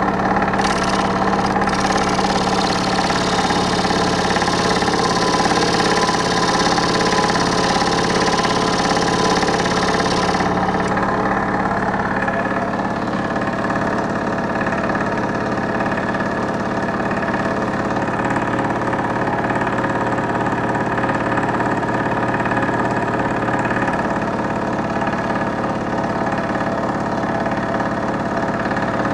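Scroll saw running, its reciprocating blade cutting the end of a thin wooden trim strip with a steady hum and a hissing bite. About ten seconds in the cutting stops and the saw runs on with nothing on the table.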